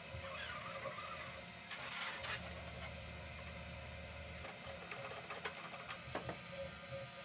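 Faint clicks, taps and brief scraping of 3D-printed plastic wing parts being handled and fitted together, with a cluster of clicks near the end.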